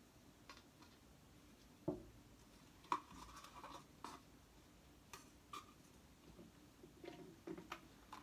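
Faint, scattered clicks and light scrapes of a small plastic container and lid being handled, with two sharper taps about two and three seconds in.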